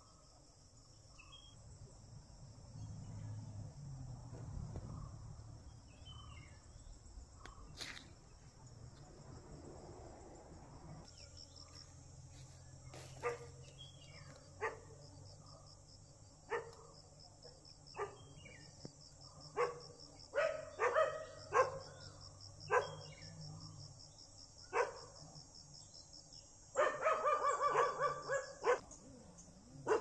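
A dog barking: single barks spaced a second or two apart, then a quick run of barks near the end. Underneath is a steady high-pitched drone of insects.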